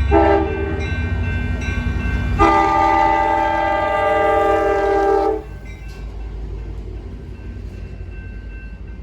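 A horn sounding a chord of several tones: a short blast of about half a second, then a longer blast of about three seconds. A steady low rumble runs under both and goes on after the horn stops.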